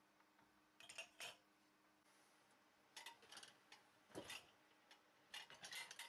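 Ceramic mugs clinking and knocking against the wire upper basket of a Miele dishwasher as they are set into the rack: four short clusters of clinks, with a duller knock about four seconds in.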